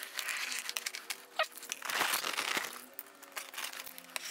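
Box cutter blade slicing through the cardboard of a large box: irregular scratchy strokes, two of them about a second long, with small clicks between.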